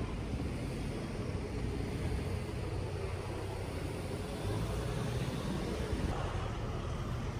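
Steady outdoor street ambience: a low, even rumble of road traffic, with no distinct events.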